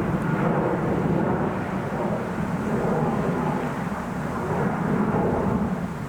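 Airliner jet engines making a steady, low rumbling roar.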